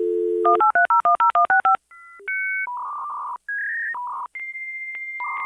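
Dial-up modem connecting over a phone line: a dial tone, then a quick string of about ten touch-tone digits, followed by the handshake's answer tones and hissing screeches, with a steady high tone broken by regular clicks near the end.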